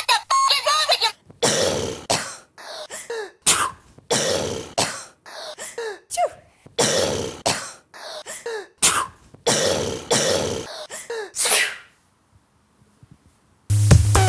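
Women's coughs and sneezes cut together into a repeating rhythm, often in pairs about half a second apart. They stop a couple of seconds before the end.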